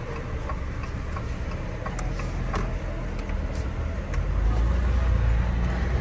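Car driving: a steady low rumble of engine and road noise that grows louder about four seconds in, with a few scattered light clicks.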